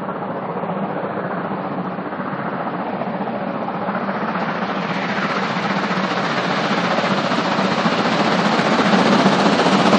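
Two-cylinder steam locomotive working under steam, its exhaust beats coming as a steady chopping rush that grows steadily louder.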